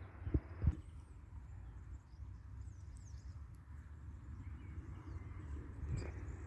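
Quiet outdoor ambience: a steady low rumble with faint high bird chirps, and two soft knocks in the first second.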